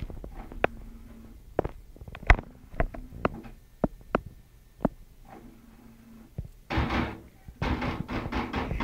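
A kitten's paws striking and batting at the glass-fronted shelf of a TV stand: a string of sharp separate taps and knocks, then a quicker, busier flurry near the end.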